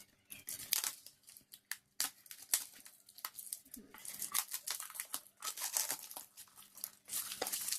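Action-camera packaging being opened by hand: irregular crinkling and rustling with some tearing.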